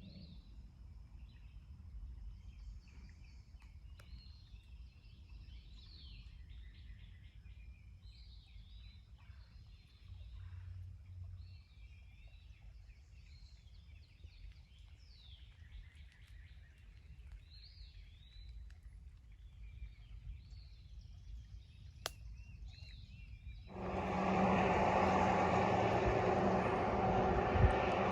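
Songbirds chirping and calling over a low rumble. About 24 seconds in, an abrupt, much louder, steady rushing noise with a low hum cuts in and takes over.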